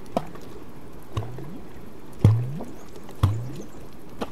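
Water splashing and gurgling around a float tube in a steady rhythm, about one stroke a second, as swim fins kick under the surface. Each stroke is a sharp slap followed by a short gurgle that rises in pitch.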